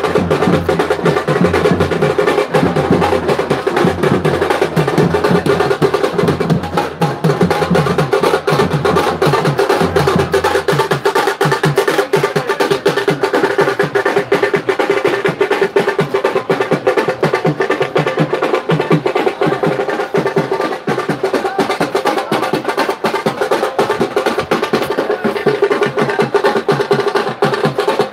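Music with fast, continuous drumming over a steady melody; a deep bass part drops away about eleven seconds in.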